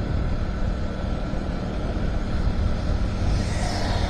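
Motorcycle riding at a steady speed: steady engine drone with wind and road rumble on the microphone. Near the end another motorcycle pulls up close alongside, bringing a brief swell of hiss.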